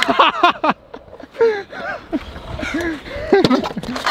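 A young man's wordless groans and cries of frustration after a fall on a scooter, drawn-out rising and falling vocal sounds, with a few sharp knocks near the start.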